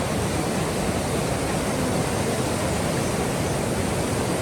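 Steady rushing of a mountain river's water, an even noise with no breaks.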